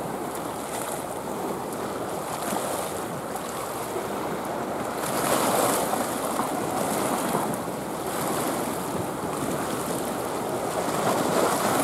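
Sea waves washing against a rocky shore, swelling and easing, with wind on the microphone.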